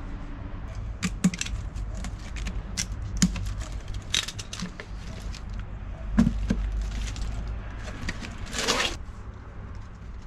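Scattered clinks and knocks of metal tools and parts being handled, over a steady low hum, with a short hiss about eight and a half seconds in.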